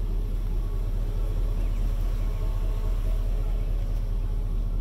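A 1990 Chevrolet C1500 pickup's engine idling steadily in reverse gear, a low even rumble.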